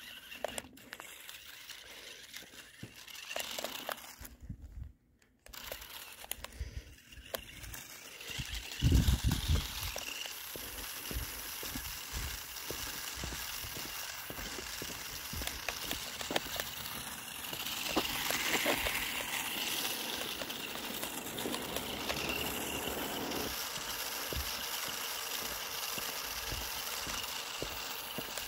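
Toy RC off-road car driving over rough ground: rattling, crunching and clicking from its wheels and body. The sound drops out briefly about five seconds in, and there is a loud thump about nine seconds in.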